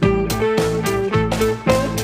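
Background music: a plucked guitar-led tune with a steady beat.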